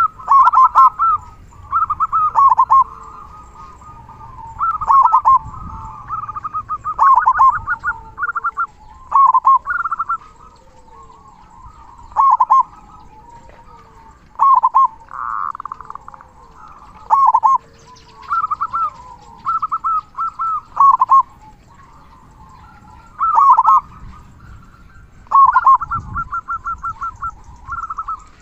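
Local perkutut (zebra dove) cooing: short phrases of quick staccato notes that come again every couple of seconds, sung in the big, deep 'kung' voice prized in perkutut keeping.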